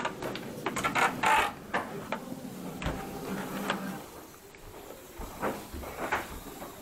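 Footsteps on wooden stairs and plank floorboards, the boards creaking, with irregular knocks and clicks.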